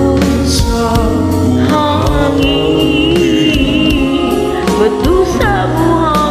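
A ballad on a backing track: long sung notes with vibrato over a steady beat and bass.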